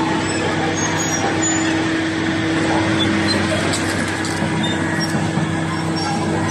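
Komatsu PC400-7 excavator's six-cylinder diesel engine running steadily, a constant drone.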